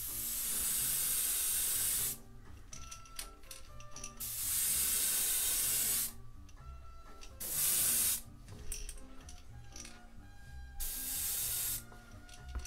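Badger airbrush spraying thinned paint in four bursts of hiss: two of about two seconds each, a short one about eight seconds in, and a one-second one near the end.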